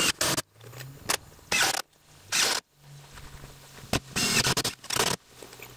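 Cordless impact driver driving screws through engineered-wood siding panels into the wall studs, in short bursts of hammering, the longest about a second long near the end. A faint low hum runs underneath.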